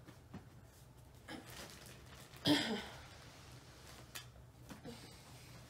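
Gift packaging being handled and moved: one short sharp rustle or knock about two and a half seconds in, then a few faint clicks, in an otherwise quiet room.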